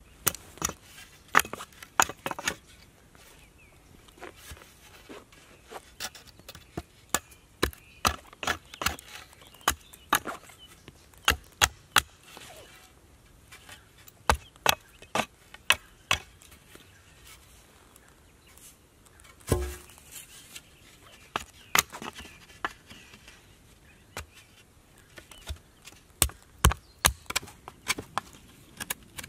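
Small axe chopping a thin wooden stick: sharp wooden cracks in quick runs of several strokes, with short pauses between runs and one duller, heavier thud about two-thirds of the way in.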